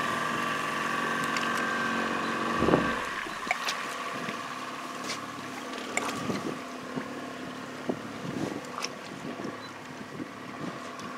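Boat engine running with a steady hum, which drops away about three and a half seconds in, leaving faint wind noise and scattered light knocks and clicks.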